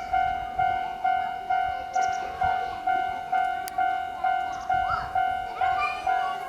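Railway level-crossing warning bell dinging steadily, about two high, ringing strikes a second, over a low rumble. A brief rising sound joins in near the end.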